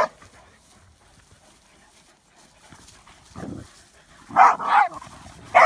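Dogs barking as they play-fight: one bark at the start, then a few barks bunched together near the end.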